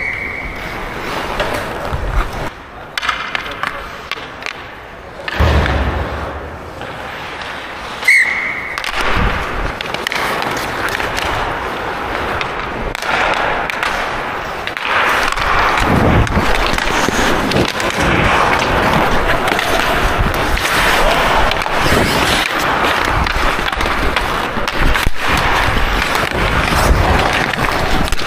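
Ice hockey skates carving and scraping the ice as the player skates, with scattered knocks of stick and puck and a heavy thud about five and a half seconds in.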